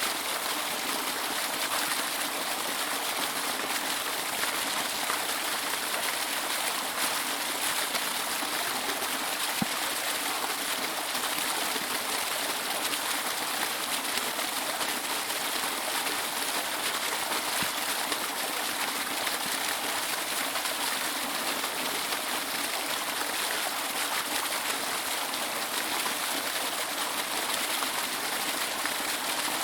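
Waterfall: rushing water running steadily with no change.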